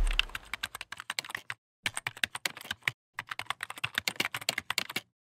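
The tail of a deep boom fades out at the start. Then come rapid, irregular clicks like typing on a keyboard, in three runs with two short pauses, which stop abruptly about five seconds in.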